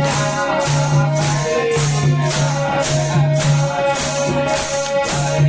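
Devotional kirtan music: a tambourine-like jingle shaken on a steady beat, about two strokes a second, over a held low drone and melodic tones.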